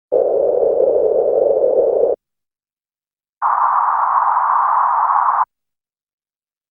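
Two bursts of 1/3-octave band-pass filtered white noise, each about two seconds long with about a second of silence between: the first band centred at 500 Hz, the second, higher, at 1000 Hz.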